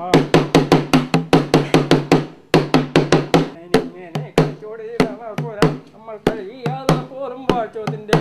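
A thudi, a small laced folk drum, beaten with a stick in quick strokes, about six a second at first, then slower and more uneven after a short break a little past two seconds in. A man's wavering chant-like singing runs under the drumming.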